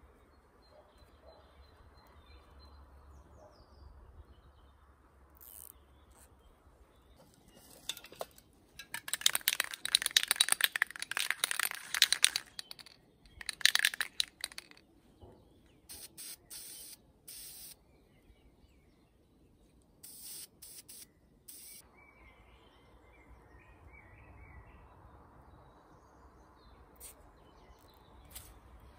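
Aerosol spray paint can shaken hard for about four seconds, its mixing ball rattling, then a few short hisses of spray, each a second or so long. Birds chirp faintly in the background.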